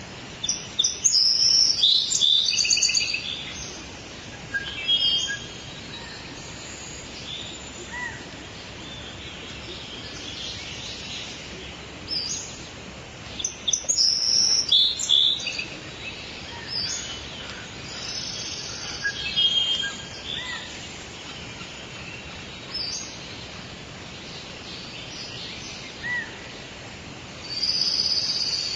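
Wild birds singing and chirping in repeated bursts of high, quick phrases, the loudest near the start, about halfway through and near the end, over a steady background hiss.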